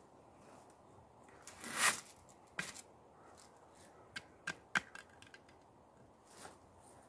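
Steel great helm being pulled down over a chainmail coif: a scraping rustle about two seconds in, the loudest sound, then a few sharp metallic clinks as the helm settles on the mail.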